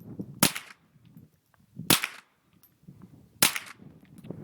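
AR-15 rifle fired three times in slow, deliberate semi-automatic fire, the shots about a second and a half apart, each with a short echo tail.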